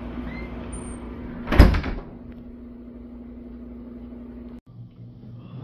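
A door slammed shut once, a single loud bang about a second and a half in, over a steady low hum.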